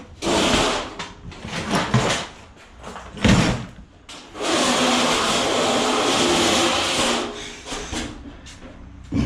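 Junk being handled and shifted while sorting scrap: a few short shuffling noises, a sharp knock a little over three seconds in, then a steady noise for nearly three seconds in the middle.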